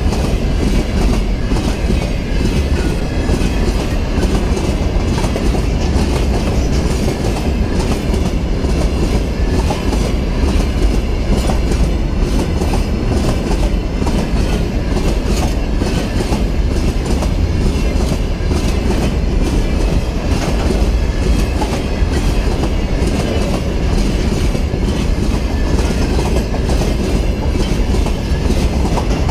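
Railway cars of a long train rolling steadily past at speed, wheels clattering over the rail joints over a heavy low rumble.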